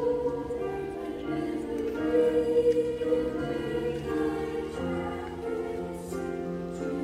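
Youth choir singing with piano accompaniment, the voices moving together in long held notes.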